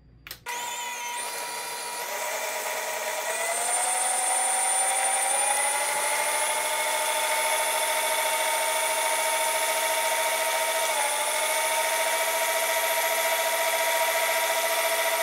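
Nutrimill Artiste stand mixer's motor whining as it spins the wire beater paddles and scraper through cream cheese and butter for buttercream. It starts a moment in and rises in pitch over the first few seconds to a steady speed, with a brief dip in pitch about eleven seconds in.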